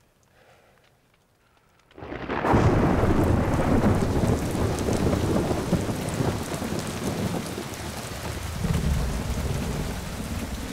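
Heavy rain pouring down, coming in suddenly about two seconds in after near silence, with a deep low rumble underneath.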